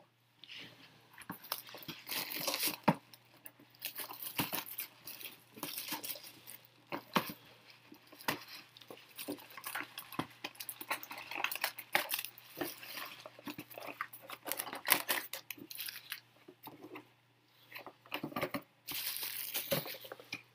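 Trading-card box and pack wrappers being torn open and crinkled by hand: irregular crackling rustles and sharp clicks, on and off, with short pauses.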